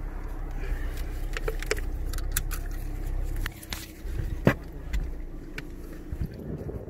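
Low rumble of a car heard from inside the cabin, easing off about three and a half seconds in, with clicks and rubbing from a phone being handled and a sharp knock about four and a half seconds in.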